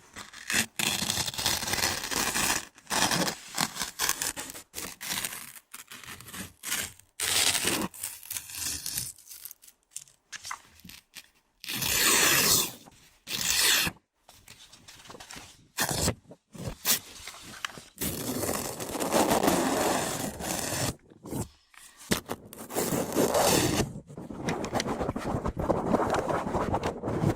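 Harsh ASMR trigger noises made close to the microphone: objects scraped, rubbed and rustled against it in irregular loud bursts with short gaps between them.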